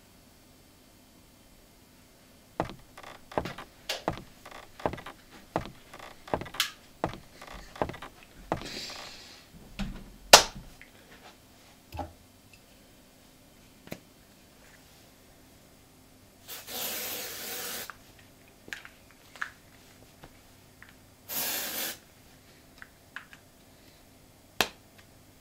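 Nivea Invisible aerosol deodorant can shaken in the hand, clicking and rattling in quick irregular knocks, then sprayed twice: a hiss of about a second and a half, and later a shorter one.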